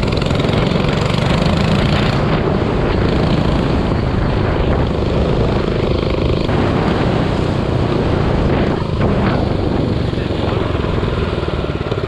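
Minibike's small engine running steadily under throttle while being ridden, loud throughout with a slight dip about nine seconds in.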